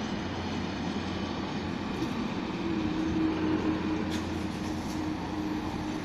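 Freight train of tank wagons running away down the line, a steady rail rumble. A steady hum joins about halfway through.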